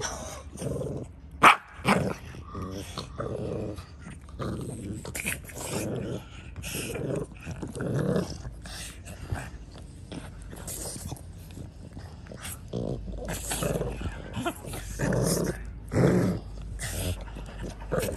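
Two French bulldog puppies play-fighting, growling in short irregular bursts, with a sharp knock about a second and a half in.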